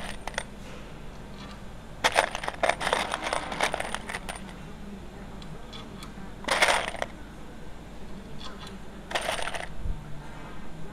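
Small metal parts clinking and rattling against a metal door-frame profile: a run of rapid clicks about two seconds in lasting a couple of seconds, then two shorter clusters of clinks.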